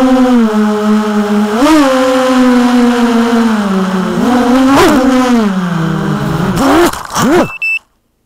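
Racing quadcopter's SunnySky 2207 2100kv brushless motors and two-blade DAL 6045 propellers whining, the pitch dipping and rising with the throttle. Near the end it swoops up and down a few quick times as the quad comes down, then cuts off suddenly.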